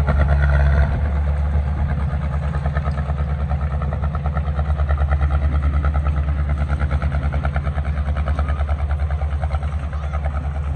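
Heavy earthmoving machine's diesel engine running steadily with a rapid, even beat.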